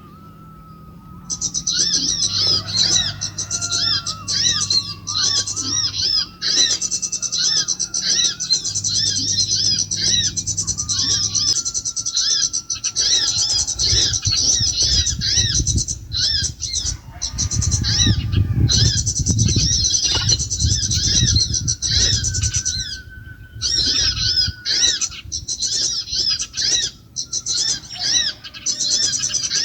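Small birds chirping shrilly, in fast repeated trills that go on with only brief breaks, the kind of bird-lure call used to draw birds to a trap. A low steady hum sits under the first half, and a low rumble around the middle.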